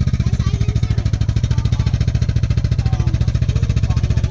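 Yamaha Aerox 155's single-cylinder four-stroke engine idling steadily through an aftermarket IXIL full exhaust system with its dB killer fitted, a fast even exhaust pulse.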